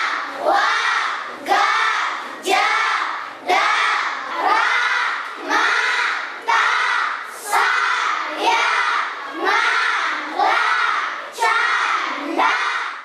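A class of children chanting the letters of the Karo script aloud in unison, one loud syllable about every second in a steady rhythm.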